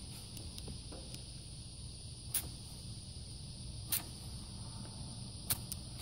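Faint steady hiss of refrigerant slowly leaking from an air-conditioner service valve, its Schrader valve core held open by a flat-rubber tank-style cap screwed onto it: the leak that drained the system's refrigerant charge. A steady high-pitched insect sound runs behind it, and there are three light clicks, the first about two and a half seconds in.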